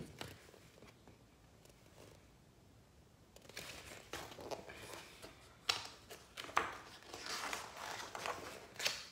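Pages of a paperback picture book being handled and turned: paper rustling and flapping, with a couple of sharp snaps. It starts about three and a half seconds in and goes on to near the end.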